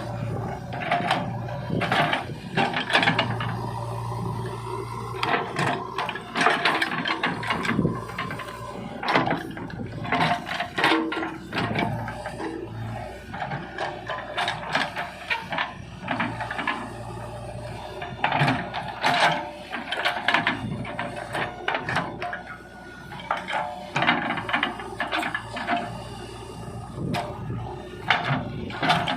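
JCB 3DX backhoe loader working: its diesel engine runs steadily under irregular clanks, knocks and scraping from the digging gear.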